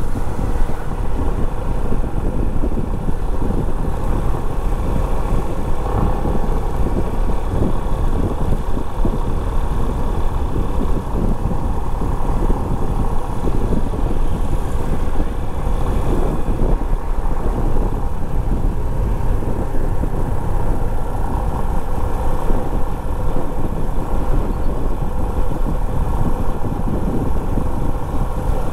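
Yamaha FZ25 motorcycle's single-cylinder engine running steadily at cruising speed, mixed with wind rushing over the camera microphone and road noise.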